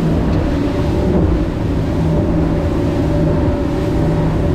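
Twin Mercury Verado 300 V8 outboards running steadily with the boat underway, a constant engine drone under heavy wind rush on the microphone.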